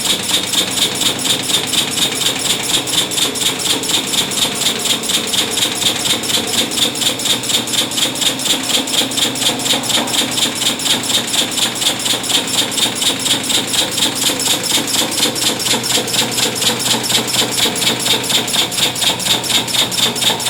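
Resistance spot-welding machine running a serial weld along a stainless steel sink seam. It makes an even, rapid train of weld pulses, about five a second, over a steady high-pitched hum.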